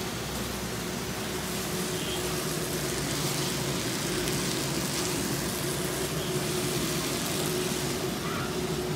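Meat sizzling as it is sautéed and stirred in a wok, over the steady hum of a running range hood fan.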